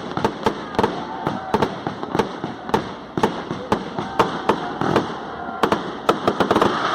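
Fireworks on a castillo, a pyrotechnic frame tower, going off: a fast, irregular string of sharp bangs and pops, several a second, over a steady crackling hiss.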